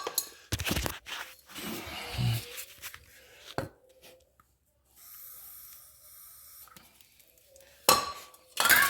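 Metal tools and car parts being handled: scattered clinks and knocks, the loudest two near the end, with a steady hiss for about two seconds in the middle.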